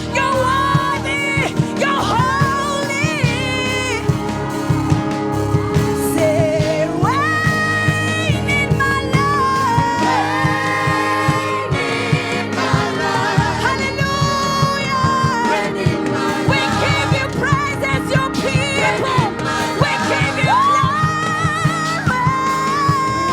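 Gospel worship song: a lead voice and a choir singing with vibrato over a band with sustained bass notes and a steady beat.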